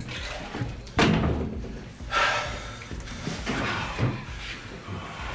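A bathroom stall door banging shut about a second in, followed by a second, noisier knock about a second later.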